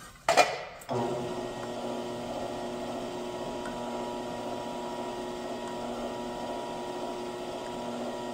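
Power hammer starting after a couple of sharp knocks about a second in, then running at a steady slow speed with a steady hum of several tones as its dies work a high spot in a sheet-metal panel, collapsing the bump into itself to shrink it.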